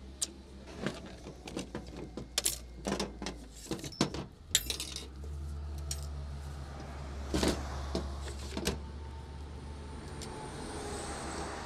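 Clicks, clacks and knocks of the plastic PTO shaft guard being taken apart by hand and with a screwdriver, its retaining ring, cuff and sleeve handled and set down among tools. About five seconds in a steady low hum, like an engine running, joins and continues under the handling.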